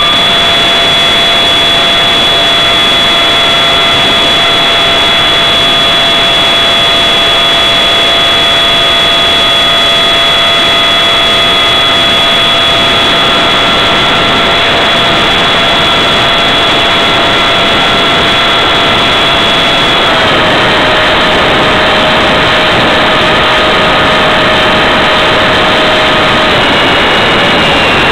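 Electric ducted fan of an RC Habu foam jet, heard from on board: a steady high whine over a broad rushing hiss. The whine steps down in pitch about 20 seconds in and again near the end as the fan slows.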